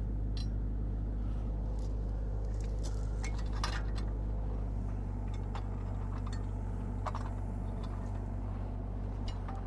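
Steady low drone of an idling machine engine, with scattered light clicks and scrapes over it.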